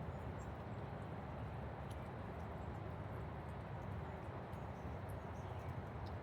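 Steady rain falling, with a few light drop ticks scattered through it.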